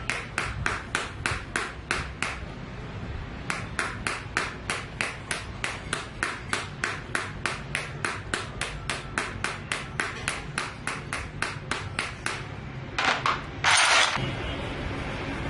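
Regular sharp taps or clicks, about four a second, with a short break after about two seconds. Near the end comes a louder, brief noisy knock, followed by a steady hiss.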